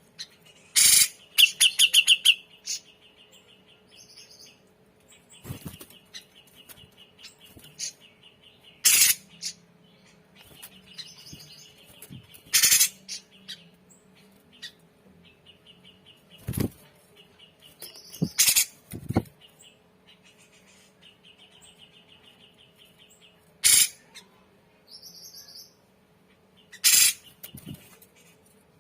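Cucak jenggot bulbul calling in loud, short notes every few seconds, with a quick run of notes about two seconds in. A fainter chirring runs on underneath.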